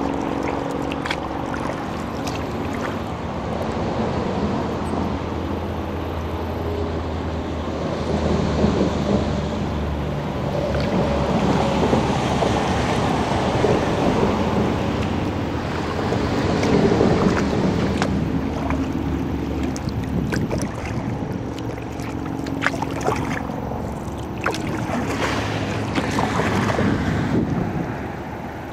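Highway traffic on the Interstate 80/90 toll road bridge overhead: a steady rumble and hum that swells and fades as vehicles pass, with scattered splashes and drips from kayak paddle strokes.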